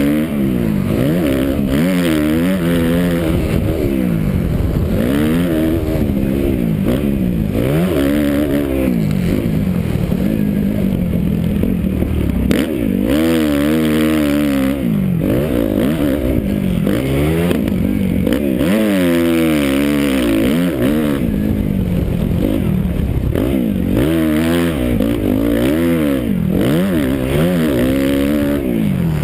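Suzuki 250 motocross bike's engine, heard from the rider's helmet, revving up and dropping off again and again as the rider twists and rolls off the throttle and shifts around the track. Wind rushes over the microphone throughout.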